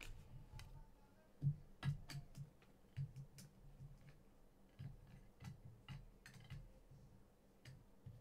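Panini Mosaic soccer cards being handled as a pack is gone through, with about a dozen faint light clicks and taps at irregular intervals, some with a soft thud as a card is set down.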